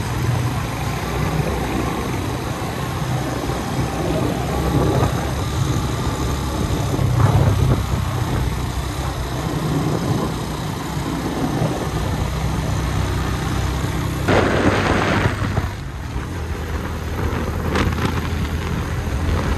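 Motorcycle engine running steadily while riding along, under a constant rush of wind noise. About fourteen seconds in, a louder rush of noise lasts about a second and a half.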